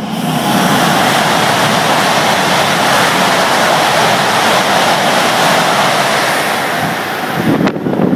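Velaro high-speed train speeding through a station without stopping: a loud, steady rush that starts suddenly and holds for about seven seconds. Near the end it breaks into gusty wind buffeting on the microphone in the train's wake.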